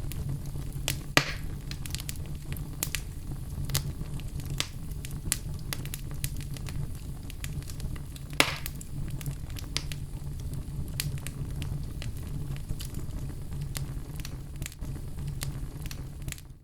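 Wood fire crackling in a fireplace: irregular sharp pops and snaps over a steady low rumble, with two louder pops, one about a second in and one about eight and a half seconds in. It cuts off abruptly near the end.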